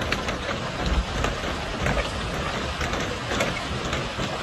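Hail and rain coming down hard: a steady hiss full of sharp, irregular clicks as hailstones strike, with a low rumble underneath.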